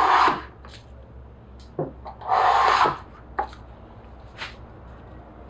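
Two scraping strokes of a hand tool across a pine board, each about half a second long, the first at the start and the second a little over two seconds in, with a few light taps between them.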